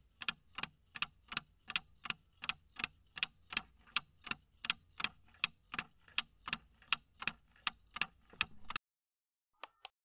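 Clock-ticking sound effect marking a quiz countdown timer: a steady tick about three times a second that stops about nine seconds in as the timer runs out. Two short clicks follow just before the end.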